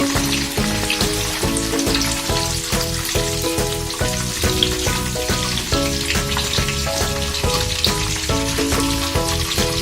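Cassava pieces sizzling and crackling in hot frying oil that has only just come off the flame, under background music with a steady beat.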